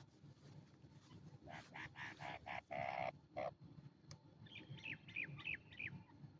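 Partridges calling: a loud run of about six harsh calls in the first half, followed by a quick series of short, falling chirps.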